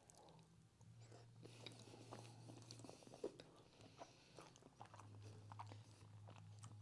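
A person faintly chewing a mouthful of lasagna close to a clip-on microphone: small wet mouth clicks and crunches scattered throughout. A low steady hum comes and goes underneath.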